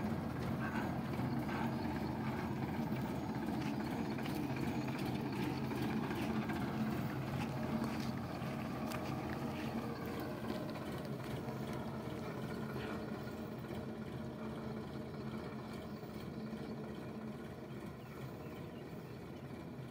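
Sonalika DI 745 tractor's diesel engine running steadily as it tows a threshing machine away, growing fainter over the second half.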